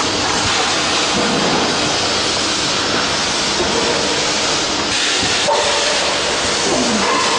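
SP 390P thermoforming packaging machine running in production, a steady, even noise with a few faint tones under it.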